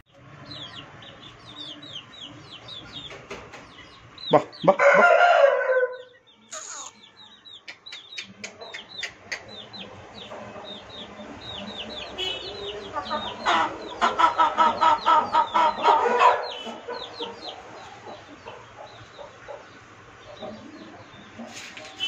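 Chickens calling: a rooster crows loudly about four seconds in, and a second, longer pulsing call comes around the middle, over constant high chirping.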